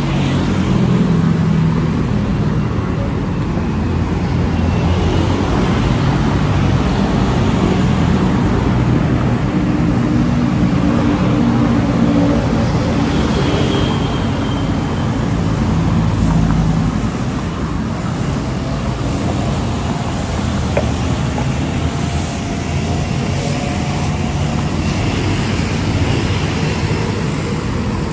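Busy road traffic: engines of passing vehicles and tyre noise, loud and steady, easing a little about two-thirds of the way through.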